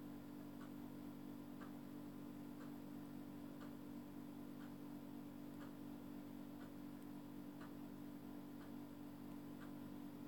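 Quiet room tone: a steady low hum with a faint tick about once a second.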